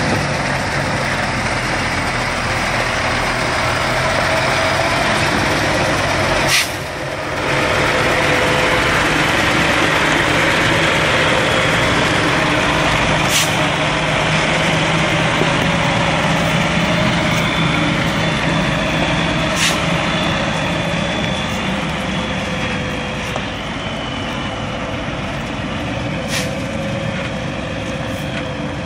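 Diesel engine of a log-laden logging truck running under load as it climbs a dirt track, a steady drone throughout. A few short sharp clicks stand out over it, the first about seven seconds in.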